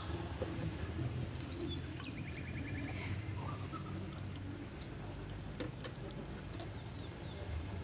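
Birds chirping, with a short rapid trill about two seconds in, over a steady low hum.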